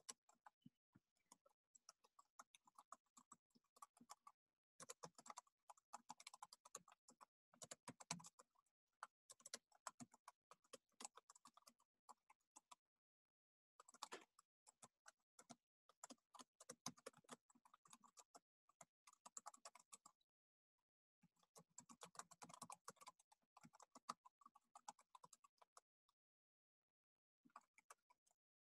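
Faint typing on a computer keyboard, in runs of keystrokes a few seconds long with short pauses between.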